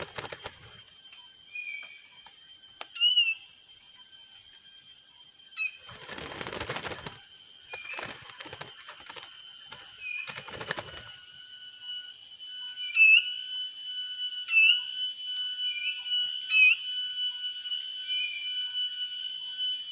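Short bird call notes repeating every second or so, louder after about 12 s, over a steady high-pitched whine. Bursts of rustling about 6, 8 and 10 seconds in.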